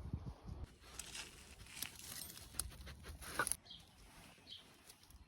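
Rustling with scattered clicks and a few low thumps, then small birds chirping briefly several times in the second half.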